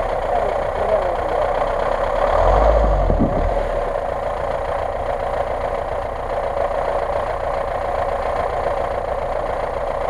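GAZ-66 truck's engine running steadily, with a low rumble that swells briefly about two to three seconds in and then settles.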